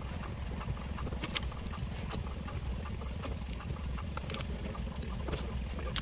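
Scattered small clicks and scrapes of a screwdriver working on plastic dashboard trim, over a steady low hum.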